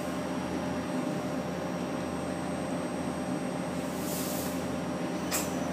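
Hitachi Seiki HT-25D CNC lathe humming steadily with its chuck at rest while the two-speed spindle is switched into high range, with a short hiss about four seconds in and a sharp click near the end.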